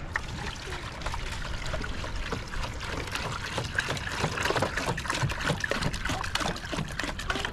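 Water pouring from a plastic jerrycan into a metal cooking pot, a steady splashing stream that grows a little louder a few seconds in.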